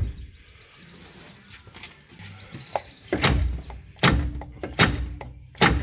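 Four dull clunks, about a second apart in the second half, as the front CV shaft of a 2013 Ram 1500 is jerked by hand. Its inner end is still held fast in the front differential.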